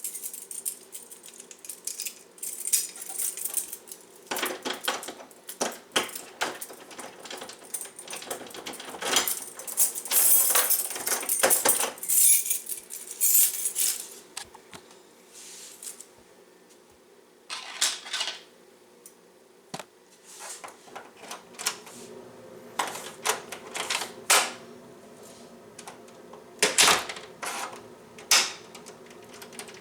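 Irregular metallic clicking and clattering of small lock hardware being handled, with dense rattling in the first half and scattered clicks later.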